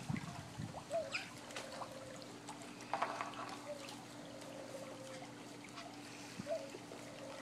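Parrots making soft short chirps and squeaks, one brighter squeak about three seconds in, with scattered small clicks and a faint steady hum underneath.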